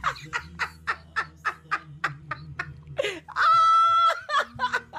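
Woman laughing hard in quick repeated bursts, breaking into a long, loud, high-pitched squeal of laughter about three and a half seconds in.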